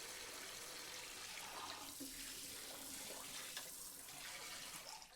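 Tap water running steadily into a sink during dishwashing, with a few light clinks of dishes. The flow stops abruptly just at the end.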